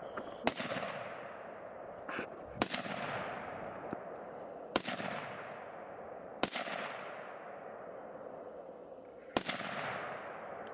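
Five gunshots about two seconds apart, each trailing off in a long echo. The shots are aimed at a tannerite target and miss it, so there is no detonation.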